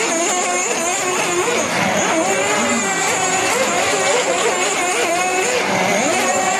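Small internal-combustion engine of a radio-controlled speedboat screaming at high revs, its pitch rising and falling over and over as the boat speeds and turns across the water, over a steady hiss of spray.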